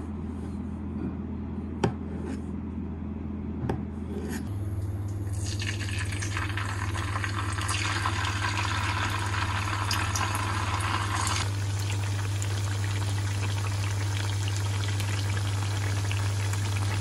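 A couple of light knife taps as tofu is cut on a wooden board, then tofu frying in hot oil in a non-stick pan. The sizzle starts about five seconds in, is strongest for several seconds, then settles to a softer sizzle over a steady low hum.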